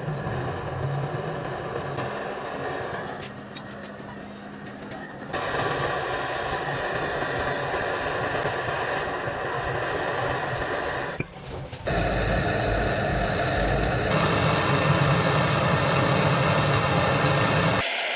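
A mini 12 V DC air compressor running with a steady mechanical hum and rattle, its sound changing abruptly several times where clips are cut together.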